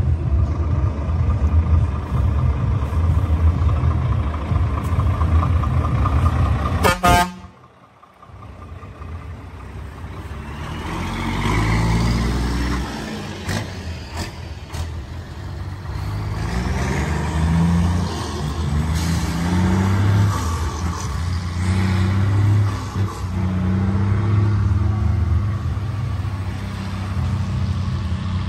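Heavy truck diesel engines running, with a truck horn sounding. The sound cuts out sharply about a quarter of the way through, then comes back with engines rising and falling in pitch again and again.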